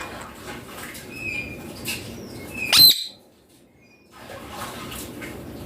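Young Indian ringneck parakeet giving a few short calls, the loudest a sharp call near the middle, followed by about a second of silence.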